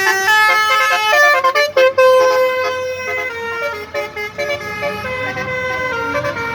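Bus 'telolet' musical air horn playing a tune of quick, stepping notes, then a long held note about two seconds in, followed by softer horn tones.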